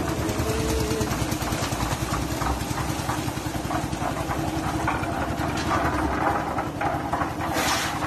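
Portable drum concrete mixer's engine running steadily while the drum is tipped to empty out wet concrete, with irregular rattling and scraping coming in over it in the second half.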